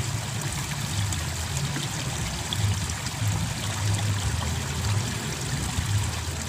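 Water running in a small irrigation ditch, a steady trickling rush with uneven low rumbling underneath.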